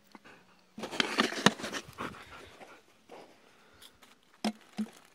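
A dog panting right up against the microphone, a loud breathy rush about a second in, followed near the end by two short knocks.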